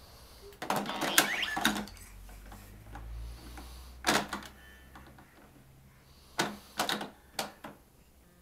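Hard plastic clicks and clatter from a toddler's activity cube as a block is pushed into a slot and its doors and lever are worked: a burst of clatter about a second in, a single click near the middle, and several quick clicks near the end.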